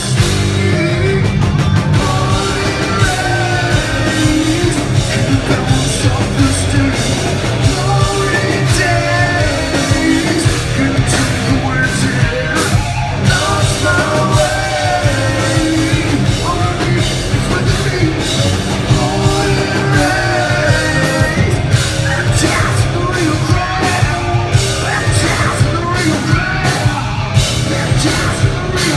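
Live rock band playing loud: distorted electric guitars, bass guitar and drum kit, with a male singer singing and yelling over them.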